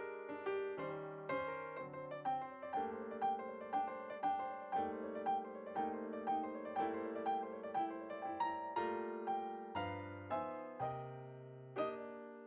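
Gentle piano music, notes and chords struck about twice a second.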